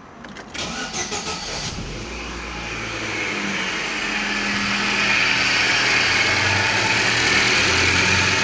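Chevrolet Celta/Classic engine cranked by the starter, catching within about a second, then running steadily and growing gradually louder. The accessory belt runs on its freshly replaced tensioner bearing with the earlier bearing growl gone.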